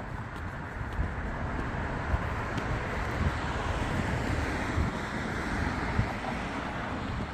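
A road vehicle passing, its tyre and engine noise swelling through the middle and easing off near the end, with wind rumbling on the microphone.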